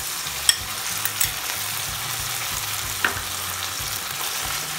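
A sauce mixture sizzling steadily as it is poured into a hot wok of sautéed onions, capsicum and green chillies. A few sharp clinks of a metal spoon on the glass bowl and pan, the loudest about half a second in.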